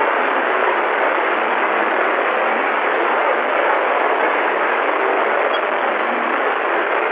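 Steady, loud hiss of static from an old phone's faulty microphone, unchanging throughout.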